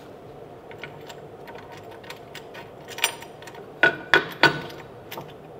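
Small metal clamps and a T-handle hex key clinking and knocking on a CNC machine's metal bed as a wooden blank is clamped down: light clicks throughout, with a few sharper ringing metallic knocks from about three to four and a half seconds in. A low steady hum runs underneath.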